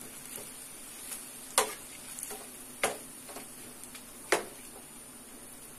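Metal slotted spatula knocking against a nonstick frying pan while stirring chopped onions and tomatoes: three sharp knocks about a second and a half apart, with fainter taps and scrapes between.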